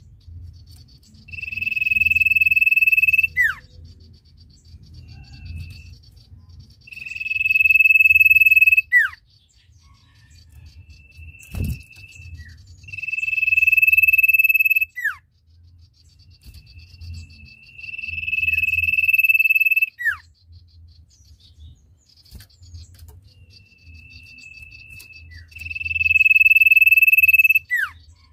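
Common iora (sirtu) giving its long 'ngesir' song: five drawn-out, steady, high whistled notes of about two seconds each, every one swelling in loudness and ending in a quick downward slide. Shorter, quieter notes come between them. A faint steady high buzzing runs underneath.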